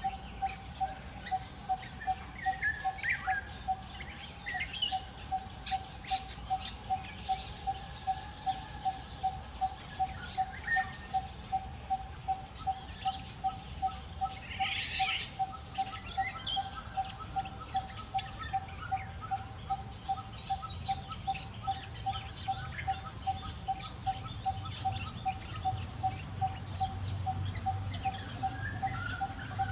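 Birds calling outdoors: one bird repeats a single short mid-pitched note over and over, about two to three a second, while others chirp now and then. A high, rapid trill comes in briefly about two-thirds of the way through.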